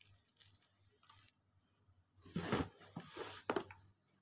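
Plastic sticker sheet and packaging being handled: light rustling and crinkling, then a louder couple of seconds of rustling with a sharp tap past the middle.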